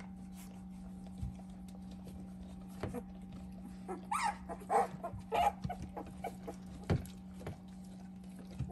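Two-week-old puppies squeaking and whimpering in short, high cries, most of them bunched between about four and six seconds in, with a bump near seven seconds. A steady low hum runs underneath.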